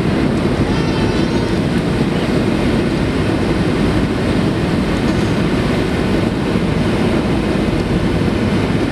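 Steady cabin noise of a Boeing 737-700 on final approach, heard from a window seat over the wing: its CFM56-7B jet engines and the rush of air over the extended flaps.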